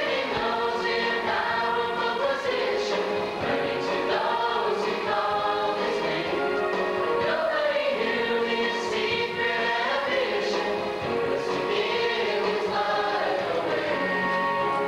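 Mixed choir of men and women singing a Christian song together in harmony, through microphones.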